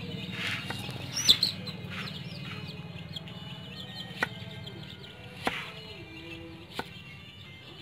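Chickens clucking and small birds chirping, with a loud call about a second in, over a steady low hum. A few sharp, single knocks of a cleaver on a wooden chopping board come a second or so apart.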